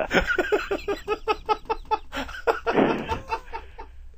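Men laughing: a rapid run of ha-ha laughs that trails off near the end.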